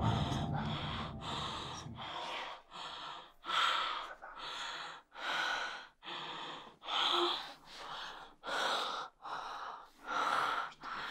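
A woman breathing hard in short, regular gasps, about one a second, having just woken with a start. A low sound fades out over the first two seconds.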